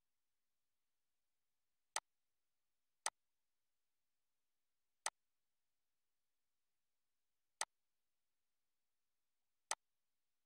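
Five sharp, isolated clicks at uneven intervals, a second or two apart, over dead silence: computer mouse button clicks.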